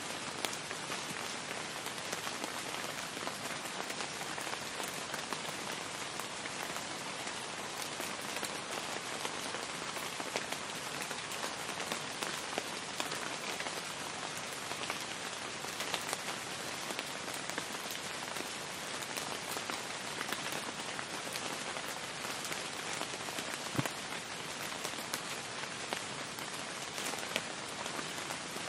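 Steady rainfall, an even wash of falling rain with scattered sharper drop splashes standing out here and there.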